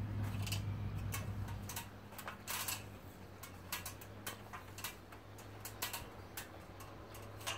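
Irregular clicks and taps of a giant schnauzer's claws and paws on the rungs of an aluminium ladder as the dog climbs down, spaced roughly half a second apart. A low hum fades out about two seconds in.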